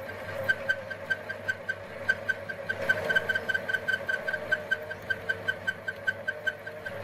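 Small metal lathe running with a 6 mm drill bit in the tailstock set to bore down the centre of the workpiece: a steady hum with a light, regular tick about five times a second.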